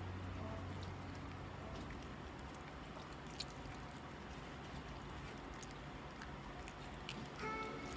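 Faint, wet squishing of raw chicken skin being pulled away from the meat by hand, with a few small clicks.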